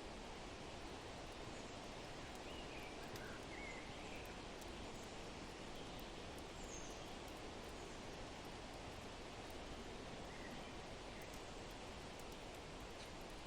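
Faint, steady wind noise with a few soft bird chirps now and then, most of them in the first half. Light ticks of a crackling fire run through it.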